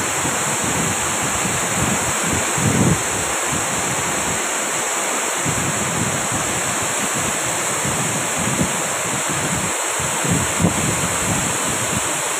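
Waterfall rushing, a steady even roar of falling water, with wind buffeting the microphone in uneven low gusts.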